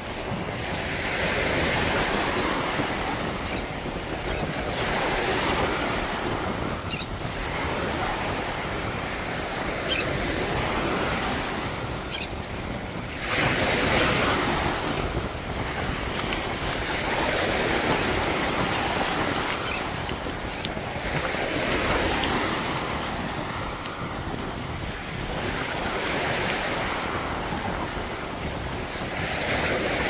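Ocean surf breaking on a sandy beach, the wash swelling and fading every few seconds, with one louder surge about halfway through.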